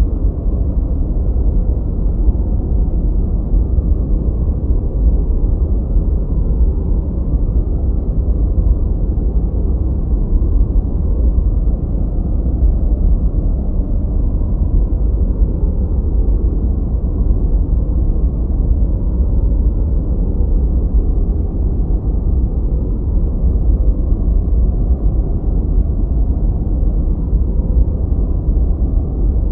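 Steady synthetic 'gentle white noise' for sleep and tinnitus masking, filtered so it is deep and rumbling with no high hiss. It holds at an even level throughout.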